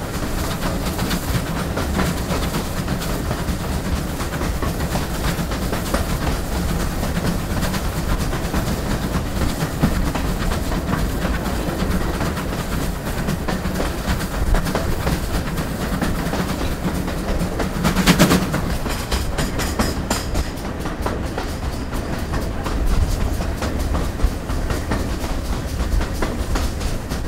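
Cab of the GWR Collett 2251-class 0-6-0 goods steam locomotive no. 3205 on the move: a steady loud rattle and clatter of the footplate and wheels on the rail. A brief loud clank comes about two-thirds of the way through.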